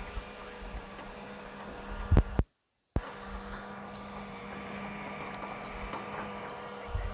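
Excavator's diesel engine running at a steady speed, a constant drone, with a couple of low thumps about two seconds in. The sound cuts out completely for about half a second just after the thumps, then the drone resumes.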